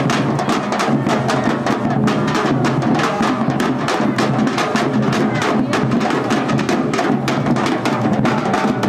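A group of street drummers beating metal-shelled drums in a fast, steady beat.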